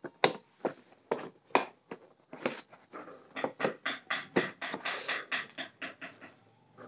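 Clear plastic headphone packaging tray crackling and clicking as it is handled and slid out of its cardboard box: a quick, irregular series of sharp clicks, busiest in the middle.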